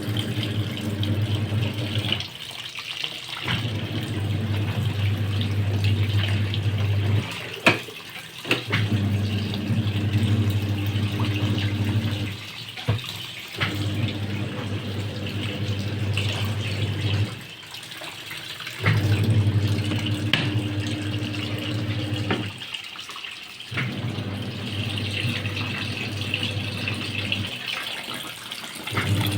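LG 7.5 kg washing machine in its wash cycle: the motor hums for about three to four seconds at a time, turning the wash drum, then pauses briefly, over and over, with water sloshing inside.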